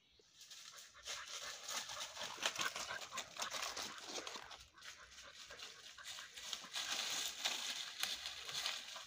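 Hunting dog panting at close range while moving through undergrowth, with irregular crackling and rustling of dry leaves and brush underfoot.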